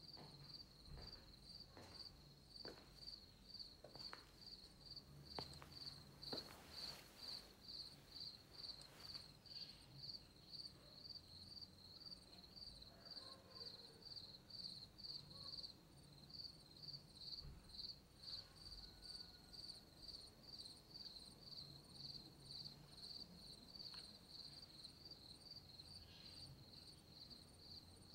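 Crickets chirping faintly and steadily, a high chirp repeating about twice a second. A few soft clicks in the first several seconds.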